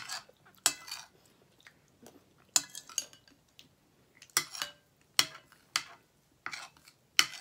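Metal fork clinking and scraping against a ceramic bowl while scooping mashed potato: about seven sharp, separate clinks, some briefly ringing.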